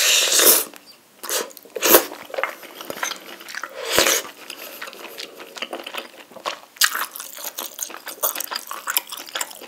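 Close-miked eating sounds of rabokki: a loud slurp of saucy noodles at the start and again about four seconds in, a sharp click of chopsticks against a plate in between, then steady wet chewing with small clicking mouth noises.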